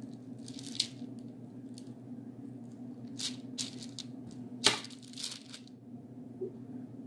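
Light scraping and tapping as a knife cuts a cloud shape out of a soft polymer clay slab on a table, with one sharper knock a little after halfway. A steady low hum runs underneath.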